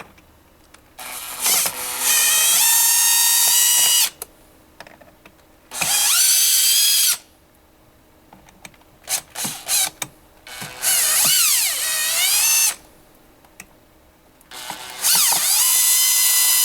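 Power drill/driver with a Phillips bit backing out the four screws of the massage chair's junction box cover: four separate runs of the whining motor, each one to three seconds long, its pitch sliding up and down as the screws turn out. A few light clicks fall between the runs.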